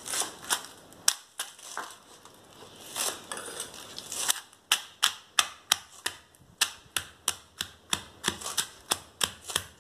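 Pestle pounding pork cracklings into chili paste in a stone mortar, crunching them up. A few scattered knocks at first, then steady strikes about two and a half a second from about halfway in.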